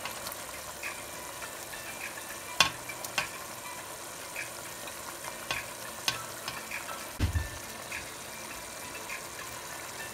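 Onion masala simmering and bubbling in a pot, with a few sharp clicks and knocks as pieces of fried hilsa are put in, and a dull thump about seven seconds in.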